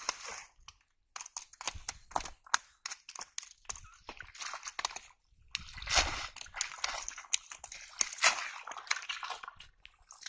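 Cast net being swished and rinsed in shallow pond water: sloshing and splashing. Irregular crackling clicks come first, and the splashing starts sharply about five and a half seconds in.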